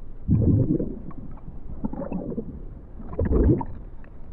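Low, muffled underwater ambience rumbling in slow swells, loudest about half a second in and again about three and a half seconds in.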